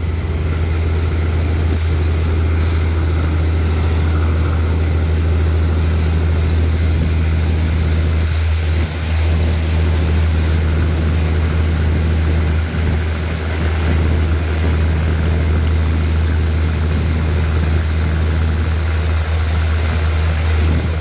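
Diesel passenger train running slowly, a loud steady low engine hum heard through an open coach window.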